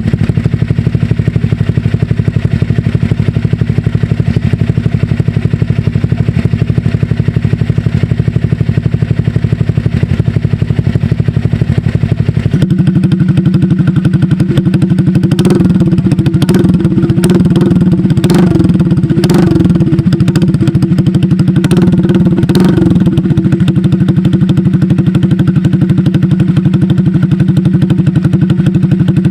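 Honda Click scooter's single-cylinder engine running through an SC Project exhaust fitted with an aftermarket silencer insert. It runs at a steady idle, steps up to a higher held speed about halfway through, then gives several quick throttle blips.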